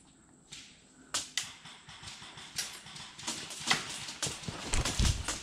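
Irregular sharp pops and snaps of airsoft guns firing across the field, starting about a second in, with a dozen or more shots over the next four seconds.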